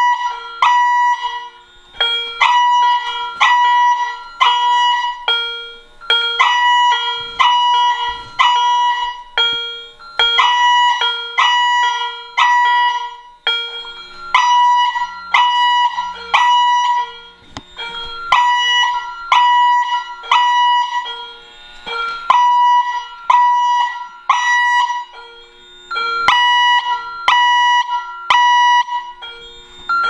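Fire alarm chime sounding in general alarm after a manual pull station activation: a ringing electronic chime tone struck about two times a second, in runs of several seconds broken by short pauses. A fainter, lower tone pulses along with it.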